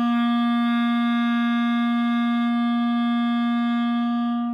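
Clarinet holding one long, steady C, fingered with the thumb and first three fingers down, in a beginner's first-notes exercise; the note stops near the end.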